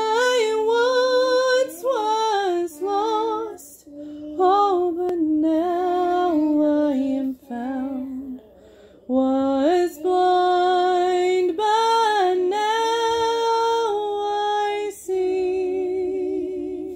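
A woman singing a melody unaccompanied, with long held notes and short breaks between phrases.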